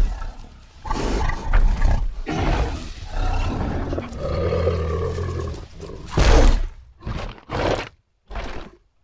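Giganotosaurus dinosaur roar sound effect: a run of growls leading into a long, low roar, then a loud burst about six seconds in and three short growls near the end.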